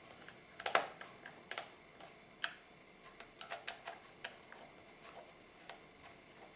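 Small screwdriver driving a screw into a laptop's display connector: a dozen or so light, irregular clicks and ticks, the loudest just under a second in.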